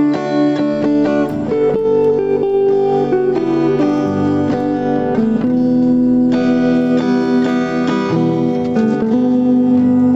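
Background music: a guitar-like plucked string instrument playing, notes picked in quick succession over sustained lower notes.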